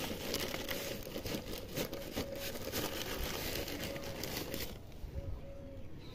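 Dry crinkling and rustling as potting-mix ingredients (rice husk, cow dung manure, oil cake) are handled and scooped by hand on a plastic sheet, busy for about the first four and a half seconds and then quieter.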